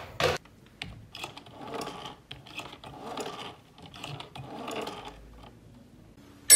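A rotary telephone dial being dialled: the finger winds the dial round and it whirs back with a clicking return, several digits one after another.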